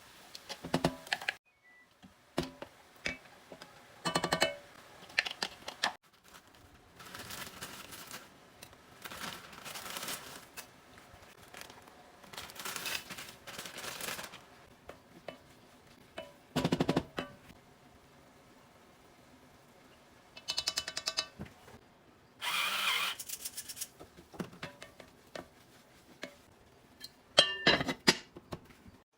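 Kitchen cooking sounds: a series of separate knocks, clicks and short rustling or scraping stretches from utensils, cookware and ingredients being handled, with a few brief ringing clinks.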